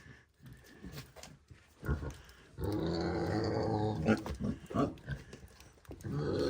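Mini pig making long, rough grunts, one lasting about a second and a half and another starting near the end, with light rustling before them.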